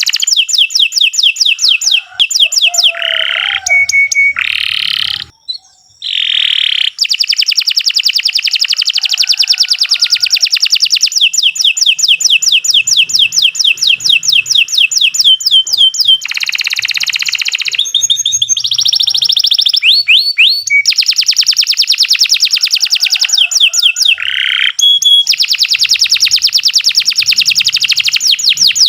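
Domestic canary singing a long, loud song of fast trills: runs of quick repeated high notes lasting several seconds each, broken by a few short pauses, with a brief gap about five seconds in.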